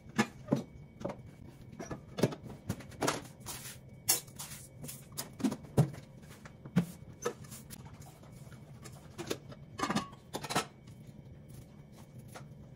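Irregular clicks, knocks and light clatter of kitchenware being handled: a rice cooker, its lid and its inner pot set down and opened as rice is got ready to cook.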